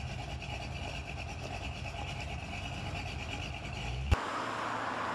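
Outdoor street ambience: a low rumble with a faint high hum. About four seconds in, a click cuts to a steadier hiss of passing road traffic.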